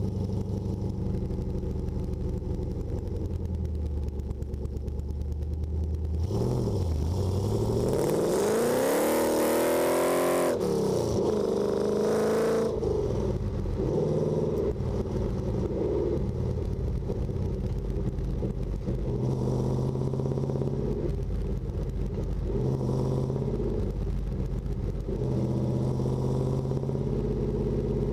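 Holden VN Commodore SS's V8 engine: steady running at first, then revving up hard about six seconds in, with a shift around ten seconds and a second climb to about twelve seconds, then cruising with the engine note rising and falling a few times.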